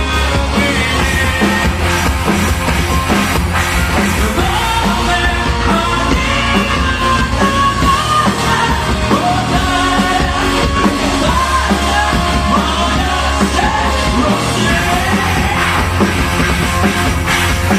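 Heavy metal band playing live, loud and dense, with a singer's voice over the band.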